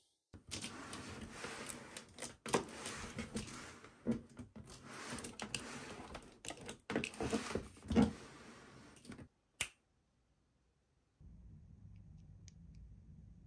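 Close handling noise: irregular rustling with many clicks and taps, stopping about nine seconds in after a last sharp click, then a faint steady hum.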